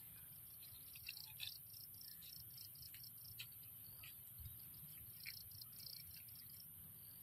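Near silence with faint forest ambience: high, stuttering insect chirping and a steady high hiss, broken by a few soft ticks.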